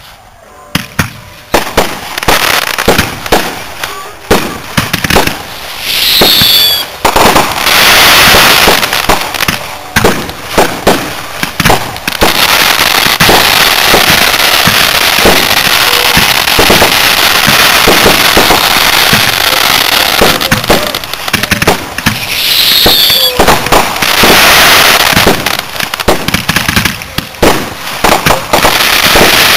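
Aerial firework shells bursting one after another, then dense crackling that runs on for many seconds. Twice a short gliding whistle rises over the noise.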